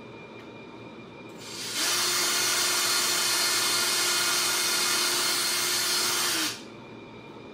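Cordless drill drilling a hole through tough saddle leather. It spins up about a second and a half in, runs at one steady pitch for about five seconds, then stops sharply.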